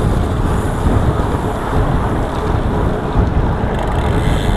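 Wind buffeting the microphone of a handlebar-mounted camera on a road bike riding at speed, a loud steady rumble with tyre noise from the road.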